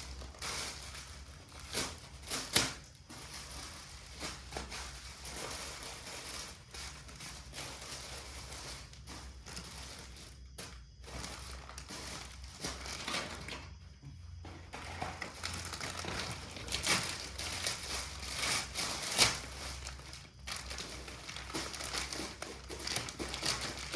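Plastic packaging crinkling and rustling in irregular bursts as it is handled and opened, with a couple of sharper crackles.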